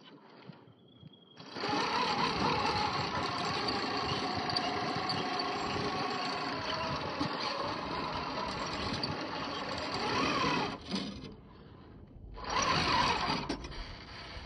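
Electric motor and geared drivetrain of an RC4WD Trail Finder 2 (TF2) scale crawler whining under throttle as it climbs rock. The whine starts about a second and a half in, its pitch sagging and rising with the throttle, and cuts off about 11 seconds in. A second, shorter burst follows a second later.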